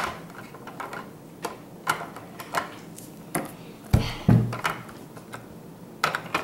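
Small plastic toy figurines clicking and tapping on a tabletop as they are handled and set down, with two louder knocks about four seconds in.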